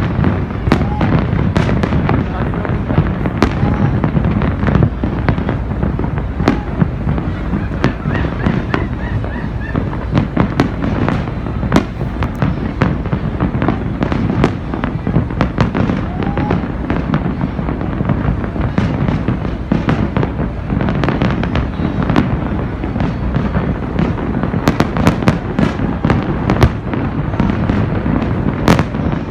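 Large fireworks display: a continuous barrage of overlapping bangs and crackles over a steady low rumble, with a dense cluster of sharp reports near the end.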